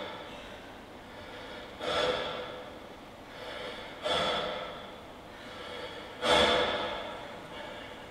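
Heavy human breathing in a steady rhythm: three loud, sharp breaths out about two seconds apart, each led in by a softer breath in.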